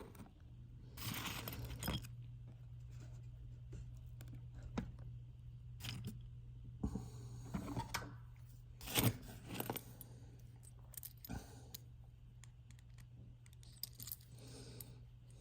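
Scattered metallic clinks, scrapes and rattles of small screws, nuts and a hand tool on a Drake T4X's metal chassis as a tube socket is unscrewed, the loudest clatter about nine seconds in. A low steady hum runs underneath.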